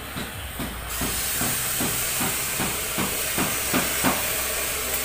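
Footsteps at a walking pace, about three steps a second, under a steady hiss that comes in abruptly about a second in.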